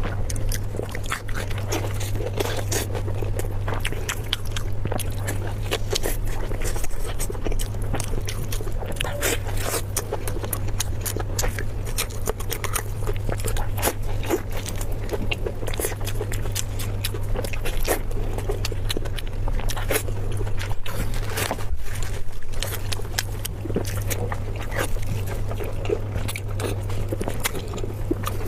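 Close-miked eating sounds: a person chewing and biting food, with wet mouth clicks in a quick, irregular stream, over a steady low hum.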